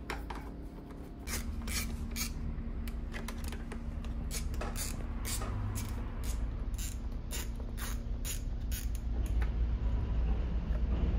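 Ratchet wrench clicking in irregular runs of sharp clicks as bolts on a new motorcycle's frame and radiator mount are tightened during assembly, over a low steady hum.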